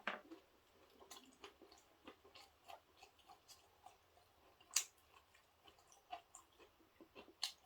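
Faint chewing and small mouth clicks of someone eating a ssam wrap of wild greens, with a couple of sharper clicks, the loudest about five seconds in.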